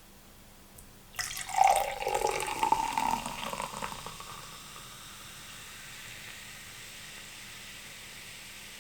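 Carbonated sparkling juice poured into a glass, starting about a second in and lasting about three seconds, then a faint steady fizz as the bubbles settle.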